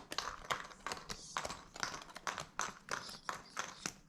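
Cardboard tokens being punched out of a board game's die-cut punchboard: a rapid, irregular run of sharp snaps and pops.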